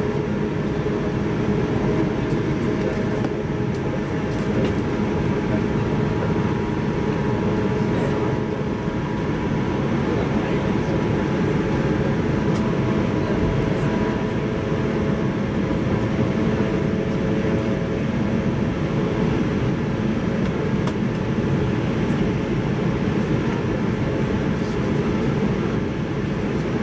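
Running noise heard inside a passenger car of a JR 185 series electric train: a steady rumble of wheels on rail and running gear, with a few faint steady tones in it.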